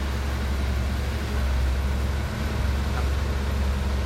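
Dump truck engine running with a steady low drone.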